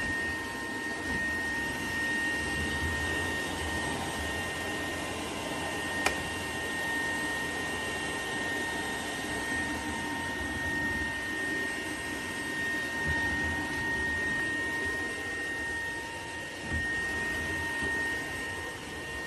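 Shark cordless stick vacuum running steadily: a high, even motor whine over a rush of air, with one sharp click about six seconds in.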